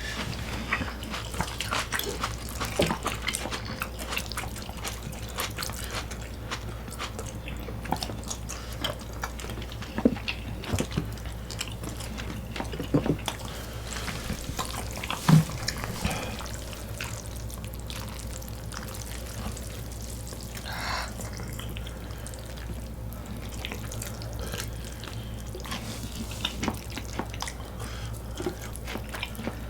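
Close-miked eating sounds: wet, saucy chewing and smacking mouth noises with many small irregular clicks, and a louder knock about fifteen seconds in.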